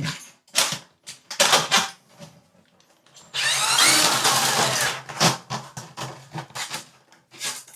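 Ryobi cordless drain auger motor whirring for about a second and a half, a little over three seconds in, as the cable is run in reverse and pulled back out of a shower drain; clicks and knocks of the cable and tool come before and after.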